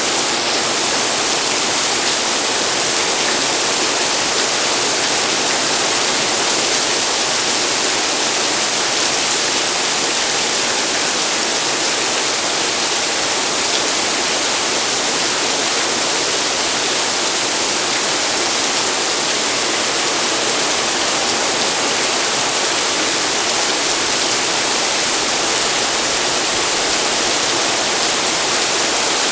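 Heavy rain pouring down in a sudden downpour: a loud, steady hiss of water.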